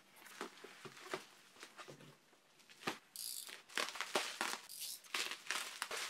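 Plastic bubble wrap being cut and pulled open around a parcel: crinkling and rustling, with scattered crackles at first and denser, louder crinkling from about three seconds in.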